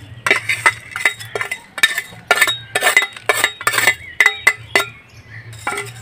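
A spoon clinking and scraping against a bowl in many quick, irregular strikes as crushed potato chips are knocked in, with a steady low hum underneath.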